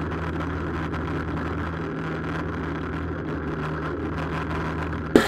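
Pit bike engine running at steady, fairly low revs, heard from a camera mounted on the bike, with a noisy rush over it. A sudden louder sound breaks in at the very end.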